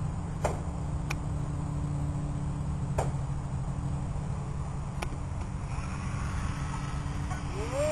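Steady low outdoor rumble with a faint steady hum and a few sharp clicks; near the end the EasyStar's brushless 400F electric motor whines up quickly in pitch and holds there as the throttle is opened.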